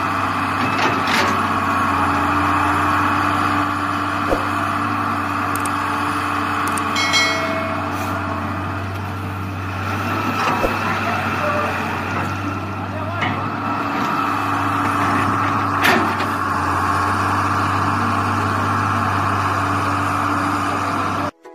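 John Deere 595D wheeled excavator's diesel engine running steadily under load as it digs and swings sand, with occasional knocks of the bucket and a brief high whine about seven seconds in. The sound cuts off suddenly near the end.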